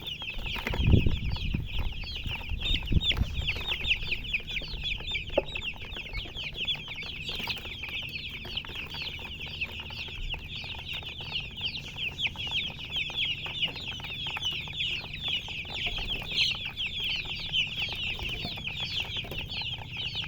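Many chicks peeping at once: a dense, unbroken chorus of short, high, downward-sliding chirps. A few low thumps come near the start.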